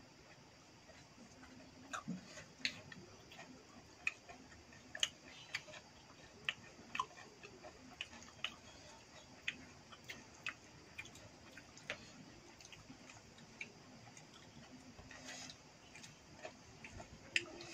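Quiet eating by hand: irregular sharp clicks and smacks, about one a second and thinning out later, from fingers picking food off a small steel plate and from chewing.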